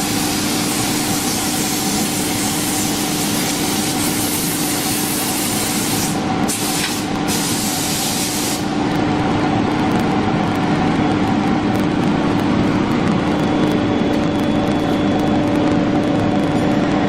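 CNC wood router running: a steady high whine from the spindle under a loud hiss, which breaks off twice briefly about six to seven seconds in and drops away about nine seconds in, leaving the machine's whine.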